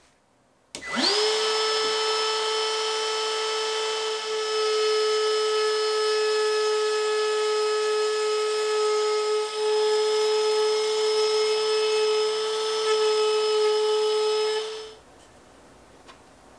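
Ryobi cordless trim router fitted with a V-groove bit starts just under a second in and spins up quickly to a steady high whine. It runs while cutting a groove along the edge of a steam-bent wooden net frame, then stops shortly before the end.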